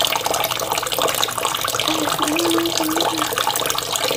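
Bathroom sink tap running, a steady stream of water splashing into the basin while hands are rinsed under it, with a short wavering tone about two seconds in.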